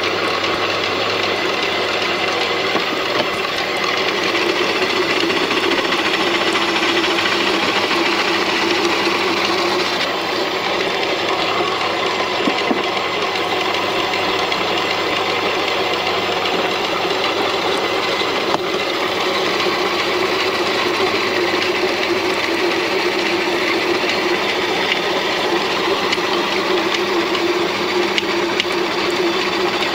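Electric kitchen vegetable chopper running steadily under load, its motor whirring as it cuts vegetables into small pieces for drying.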